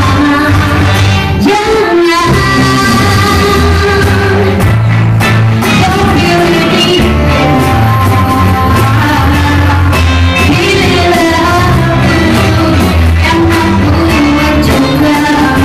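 Live band playing a pop ballad: a woman singing into a microphone over acoustic guitar, violin and keyboard, with a steady bass line, heard through the room of a small café.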